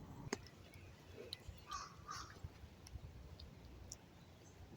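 Quiet woodland: two faint bird calls about halfway through, with scattered light ticks.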